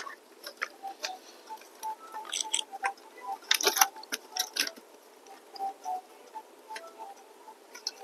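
Light clicks, taps and scrapes of a Dell Latitude 5440 laptop's motherboard being worked loose from its chassis by hand. A cluster of louder clicks comes a little past halfway.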